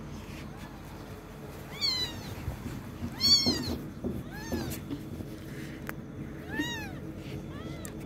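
Very young kitten mewing: about six short, high-pitched cries, each rising then falling in pitch, the loudest about three seconds in.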